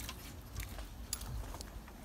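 A few faint metallic clicks from a car battery's terminal clamp being pushed onto its post, over a steady low rumble.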